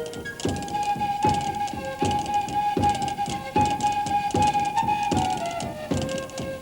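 Background music: a flute-like melody held over a plucked accompaniment with a steady beat, about one stroke every 0.8 seconds.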